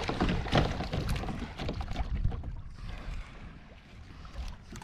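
Water splashing and sloshing at the side of a fishing kayak as a hooked fish is hauled up by hand, with wind buffeting the microphone. The splashing is busiest in the first three seconds and eases off near the end.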